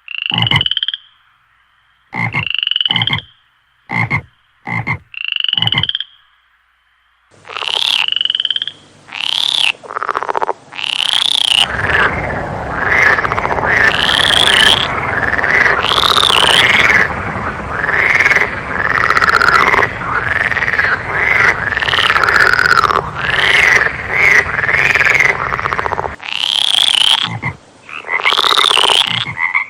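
Frogs calling. First come a few short upswept calls with silent gaps between them. From about seven seconds in, a dense chorus of many overlapping calls rises and falls in pitch over a steady background noise.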